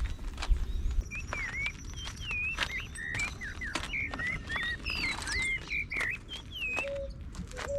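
Songbirds chirping, many short gliding whistled notes in quick succession, mixed with scattered light clicks. A low rumble fades out about a second in, and a lower repeated note begins near the end.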